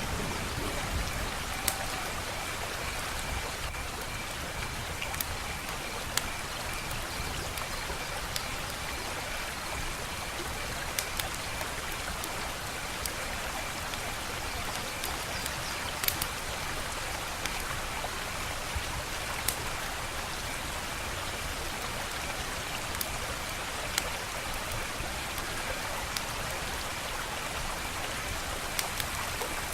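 Wood fire crackling: a steady hiss of burning with scattered sharp pops and snaps every second or few seconds.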